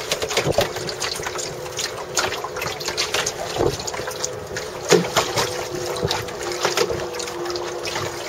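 Choppy water slapping and splashing against the hull of a small wooden Miracle sailing dinghy under way, with wind rushing over the microphone. A faint steady hum runs underneath.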